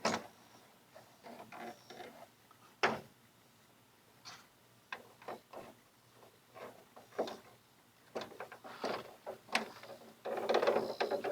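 Bolt, washer and hand tools working at a John Deere LT190 lawn tractor's hood mount: scattered metal clicks and knocks, then a quick run of rapid rattling clicks near the end.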